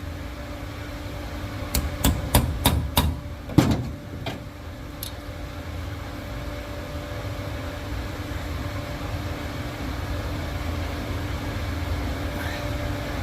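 About half a dozen sharp hammer taps on metal in quick succession, a couple of seconds in, followed by a steady low hum.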